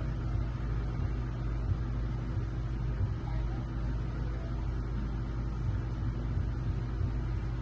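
Steady low machine hum with a faint steady tone above it, even throughout.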